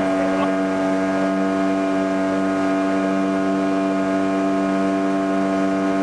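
Motorboat engine running at a steady speed while underway, a constant hum over a hiss of wind and water.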